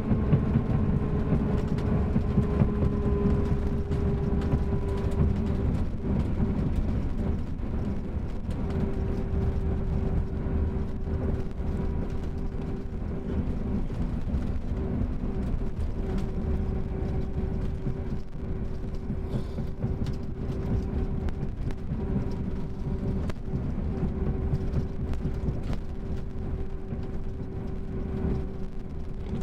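Mercedes-Benz OM-457LA inline-six turbo-diesel of a Marcopolo Paradiso G7 double-decker coach running: a steady low rumble with a held whine that breaks off briefly now and then.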